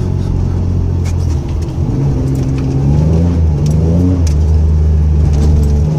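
1997 Camaro's 3.8-litre V6 engine running under load as the car drives and accelerates, its note rising, dipping briefly about halfway and rising again. No clunk or extra driveline noise with the new aluminium driveshaft fitted.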